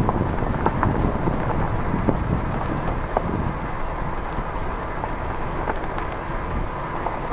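Vehicle driving slowly along a gravel road: steady low road rumble with wind buffeting the microphone, and scattered small clicks and crackles from the tyres on the gravel.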